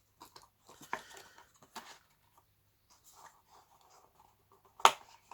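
Handling noise from aluminium-scaled Swiss Army pocket knives being moved about by hand: scattered light clicks, taps and rubbing, with one sharper click near the end.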